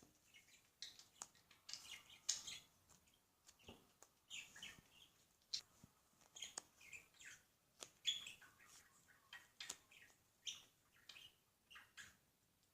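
Butter slime being squeezed and stretched by hand, giving soft sticky clicks and little wet pops at an irregular pace.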